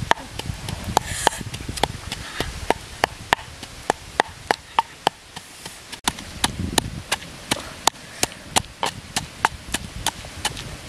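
Wooden pestle pounding red chilies and garlic in a mortar: sharp, even knocks, about three a second.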